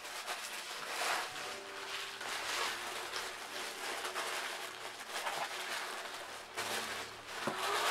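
Packaging rustling in uneven swells as hands rummage through a shipping box.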